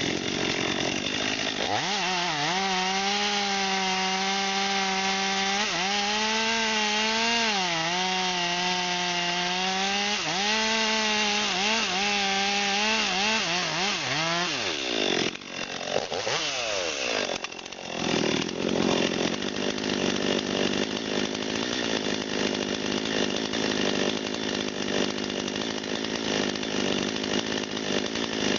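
Chainsaw running at high revs and cutting wood, its pitch wavering as it bogs and recovers under load, then falling away about halfway through. After that comes a rough, noisy sawing sound with no clear engine pitch.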